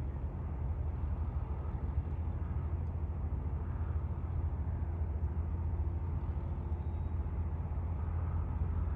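Floatplane's piston engine and propeller droning in flight as it approaches, a steady low rumble that grows slightly louder.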